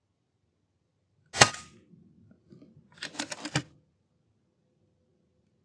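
A single suppressed shot from an FX Impact M3 .22 PCP air rifle, a sharp crack about a second and a half in. About three seconds in comes a quick run of about five clicks.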